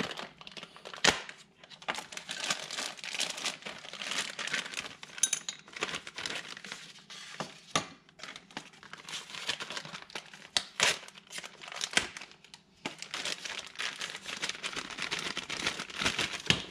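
Clear plastic packaging bags crinkling and rustling as they are opened and the parts are pulled out, with a few sharp clicks in between.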